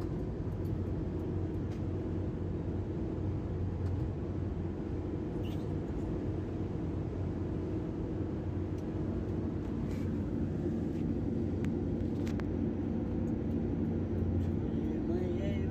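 Steady low rumble of engine and tyre noise inside a car cruising on a highway.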